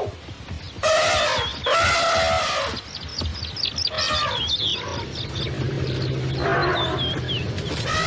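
African elephant trumpeting in four pitched blasts, the first two the loudest, over a low steady rumble in the second half.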